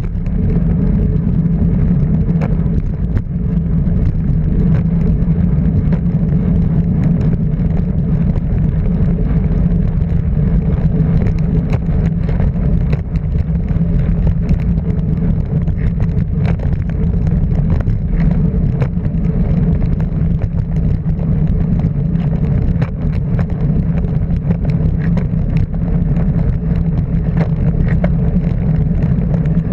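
A car driving at a steady pace: even engine drone and road noise, with scattered small knocks and rattles.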